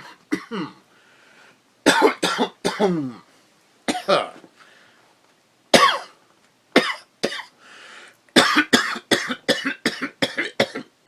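A person coughing deliberately as a jazzy improvisation: single coughs and a cluster of three with gaps between them, some dropping in pitch, then a quick run of about eight coughs near the end.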